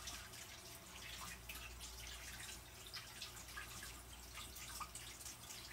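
Kitchen tap running into the sink, the water splashing and dripping as hands are washed under it.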